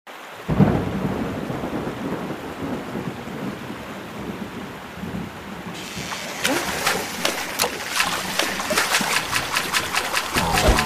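Storm sound effects: a rumble of thunder about half a second in over a steady hiss of rain and water. From about six seconds, a fast patter of drips and splashes.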